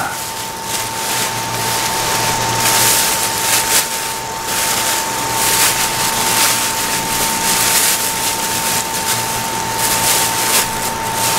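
Steady hiss of hot oil frying in a square deep-fry pan, with a plastic grocery bag crinkling in bursts as it is handled.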